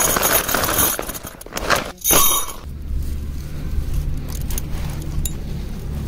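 Nylon tent fabric rustling and metal tent pegs clinking as a tent is unpacked and pegged out. After about two and a half seconds this gives way to a steady low hum with a few faint clicks.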